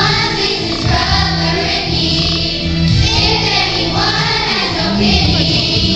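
Boys' choir singing together.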